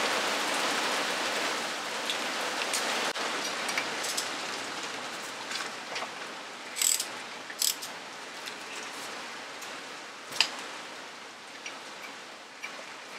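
Scattered metallic clicks and taps of a socket tool working on the brake disc's star-headed countersunk retaining screw as it is undone, a few sharper ones about seven and ten seconds in, over a steady hiss that slowly fades.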